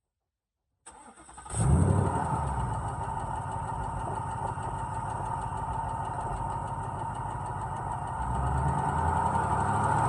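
Car engine cranked by the starter about a second in, catching with a loud rise, then idling steadily and picking up slightly near the end. The owner is unsure whether the noise it makes is piston slap or an engine rattle.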